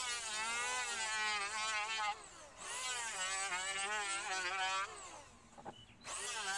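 Electric hand planer running in repeated passes on a wooden board: the motor whine spins up, wavers in pitch as the blades cut, and winds down, stopping about two seconds in and again nearly five seconds in before starting once more about six seconds in. A single short knock sounds in the second pause.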